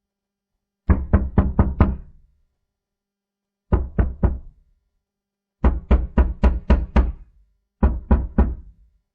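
Knocking on a door in four quick groups of raps: about five, then three, then six, then three knocks, with pauses of a second or two between groups.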